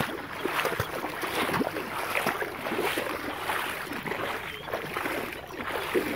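Lagoon water sloshing and lapping in small, irregular splashes, with no steady tone.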